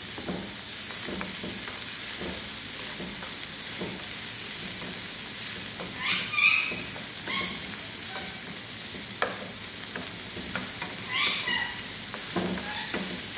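Chicken hearts and onions sizzling in a nonstick frying pan while a wooden spoon stirs them: a steady frying hiss with the spoon's frequent scrapes and knocks against the pan, and two louder bursts about six and eleven seconds in.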